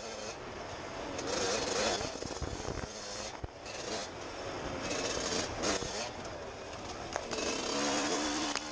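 Suzuki RM125 two-stroke dirt bike engine revving hard and backing off again and again while being ridden, the pitch and loudness swelling and dropping every second or two.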